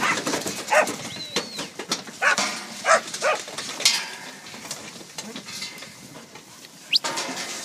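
Sheep crowded in a steel loading race calling out in several short bleats in the first few seconds, with scattered sharp knocks from the packed mob against the pipe panels.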